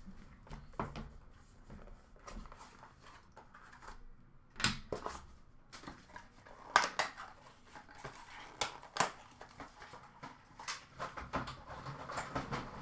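Hands opening and handling a cardboard trading-card box and its contents: scattered rustles and light clicks, with a few sharper knocks, the loudest about a third of the way in and twice more around the middle.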